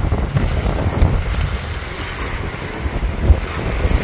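Wind buffeting the microphone in strong gusts, over the wash of small waves breaking on the shore. The gusts peak about a second in and again past three seconds.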